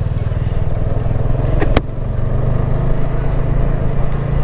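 TVS Apache RTR motorcycle's single-cylinder engine running steadily as the bike is ridden. A sharp double click comes a little under two seconds in, followed by a brief dip in the engine sound.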